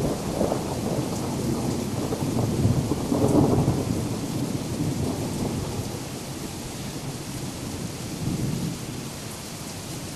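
Thunder rumbling over steady rain. The rumble swells again about three seconds in, then slowly fades, leaving the rain.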